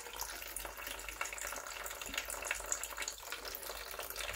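Thin stream of water running steadily out of a reverse-osmosis filter's small hoses, the combined flow from its two membranes, with fine spattering.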